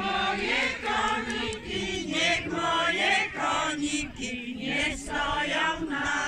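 A group of voices singing a Polish folk song together.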